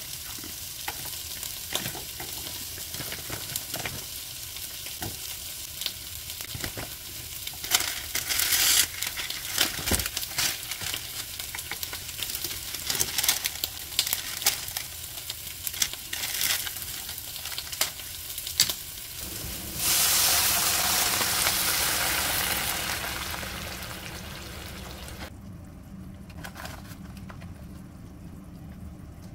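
A plastic snack bag crinkling and breaded chicken tenders handled with chopsticks on a wooden cutting board, with scattered light clicks and taps. About twenty seconds in, a pan of sliced onions starts sizzling loudly, then dies down to a faint sizzle over a few seconds.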